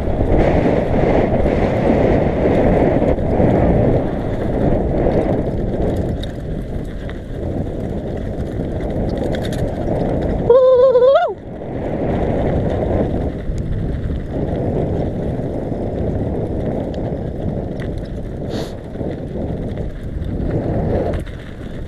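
Wind rushing over a bike-mounted action camera's microphone, mixed with mountain bike tyres rolling and rattling over a bumpy dirt track. A brief squeal sounds about halfway through.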